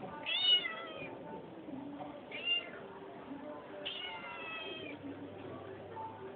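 A kitten meowing three times in high, thin mews, the first the loudest and the last the longest.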